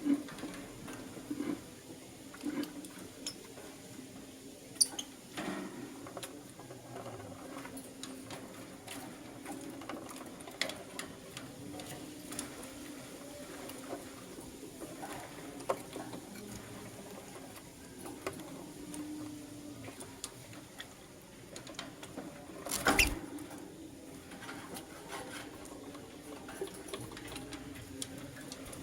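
Young lovebirds chirping and squeaking softly, with many small scattered clicks and taps and one louder knock about two thirds of the way through.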